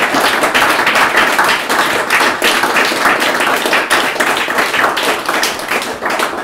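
Audience applauding: a dense run of many hands clapping that begins to thin near the end.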